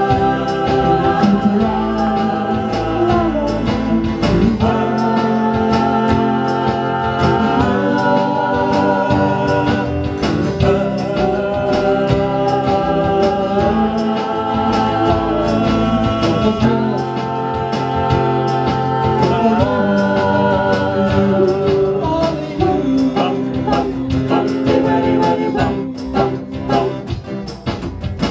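Small live band playing a song, several voices singing together in harmony with long held notes, over guitars and bass.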